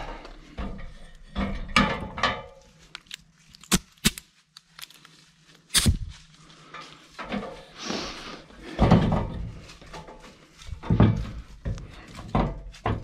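Irregular thumps and knocks of someone climbing an aluminium extension ladder, with a few sharp clicks around the middle.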